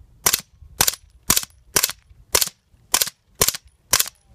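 Suppressed 9mm rifle-style fire from a 10.5-inch AR-pattern pistol upper fitted with a YHM XL Wraith suppressor: about eight sharp shots evenly spaced at roughly two a second.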